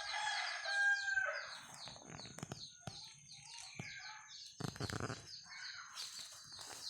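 A rooster crowing once, about a second and a half long, falling in pitch at the end. A fast run of high chirps keeps going underneath, and there is a brief rustle about two-thirds of the way in.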